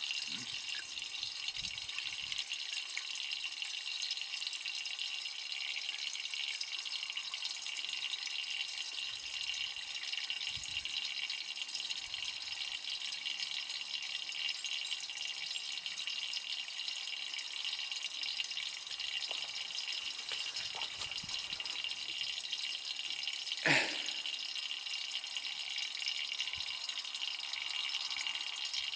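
Thin stream of water pouring from a small pump's hose into a glass of water: a steady trickling splash. A single brief knock about three quarters of the way through.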